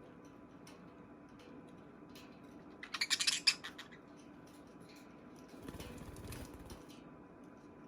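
Baby budgies moving about their cage: faint scattered ticks and clicks, a brief burst of rapid scratchy clicking about three seconds in, and a softer rustle a few seconds later.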